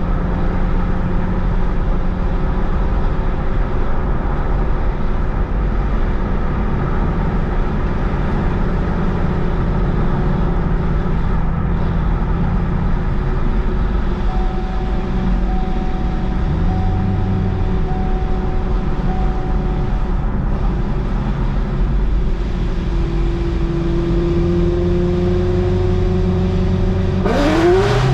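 ProCharged LS2 V8 in a 2006 Pontiac GTO, its cracked cylinder sealed with JB Weld, running steadily under way. Near the end it revs up sharply as the car accelerates.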